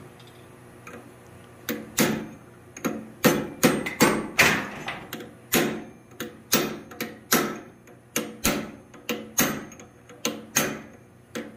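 Blacksmith's hand hammer striking a hot block of 3/4-inch square steel bar, about two ringing blows a second, starting about two seconds in. The blows are opening out the split ends of the block to spread the woodpecker's wings.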